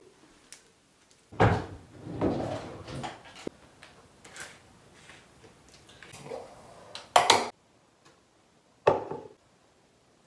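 Handling noises: a few separate knocks and clatters of plastic containers and other objects being picked up and set down on a counter, loudest a sharp clack about seven seconds in, with a last knock about two seconds later.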